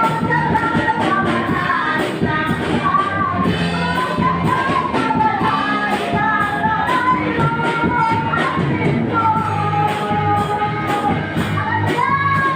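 Background music: a song with a singing voice carrying a melody over a steady beat.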